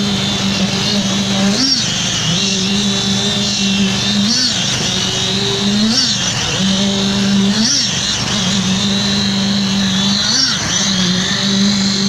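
Concrete poker vibrator running steadily with a constant hum while its head is worked through wet concrete. Its pitch briefly rises and falls again every couple of seconds.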